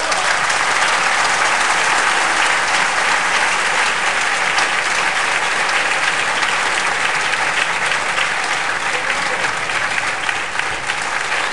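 Audience applauding, a dense, steady clapping that holds at full strength.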